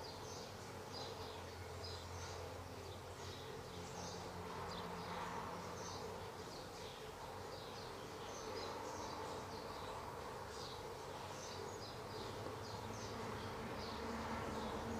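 Faint background of a low steady hum with many short, high chirps scattered irregularly throughout.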